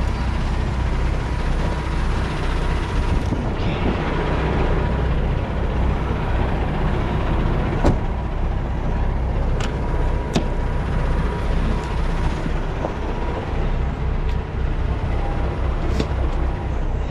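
Semi truck's diesel engine idling steadily, with a few sharp clicks and knocks scattered through it.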